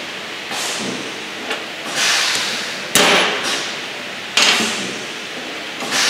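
Two sharp hammer blows on a snap ring remover tool, about a second and a half apart, driving the snap ring off the jam nut of a Scotchman punch. A rushing hiss swells and fades several times behind them.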